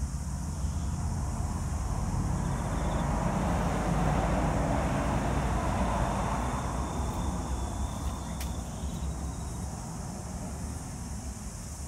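A vehicle passing, its noise swelling to a peak about five seconds in and then fading away, over a steady low rumble, with one sharp click a little after eight seconds.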